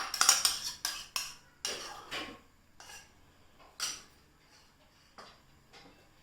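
A kitchen utensil knocking and scraping against cookware, about ten sharp clinks and short scrapes, loudest and quickest in the first two seconds, then a few fainter taps.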